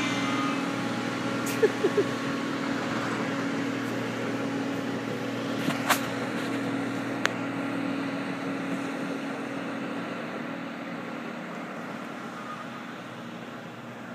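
Diesel engine of a rail work train's track maintenance machine running steadily as it moves away along the track, its drone slowly fading. A few sharp clicks, twice about a couple of seconds in and twice more around the middle.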